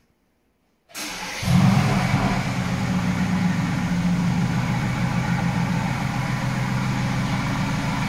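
Tesla Model 3 making a strange, loud, steady low droning noise after a remote start from the phone app. It starts abruptly about a second in and steps up in level about half a second later. The owner says it sounds as if something is broken.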